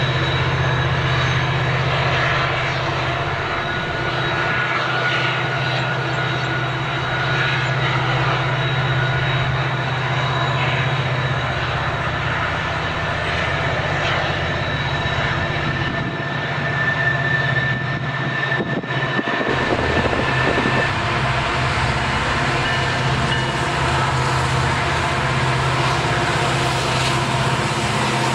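Norfolk Southern diesel-electric freight locomotives running past with a steady, deep engine drone, with thin steady high tones over it. There is a brief break about two-thirds of the way through, where a second train passage is joined on.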